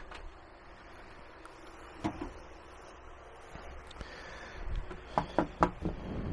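Quiet handling noise over a low background hum: one light knock about two seconds in, then a quick series of small knocks and clicks near the end.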